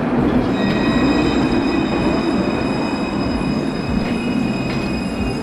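Luas light-rail tram rolling past a platform: a steady rumble of wheels on rail with several high, steady whining tones over it.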